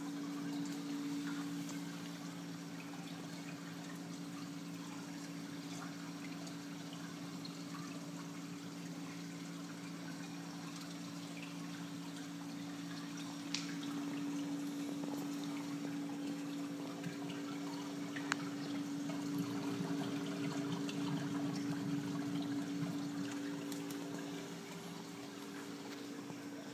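Saltwater aquarium's water circulation running: a steady trickle and splash of moving water over a constant pump hum. Two brief clicks come in about halfway through.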